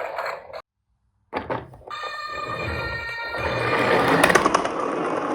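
After a short dead gap, a few clicks, then an electronic ringing tone with several steady pitches that swells and holds.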